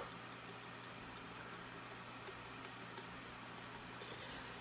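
Steady low hum of an electric fan, with a few faint, scattered clicks.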